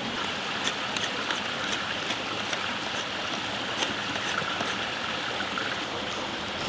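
Steady rush of running water from a stream, with scattered faint ticks over it.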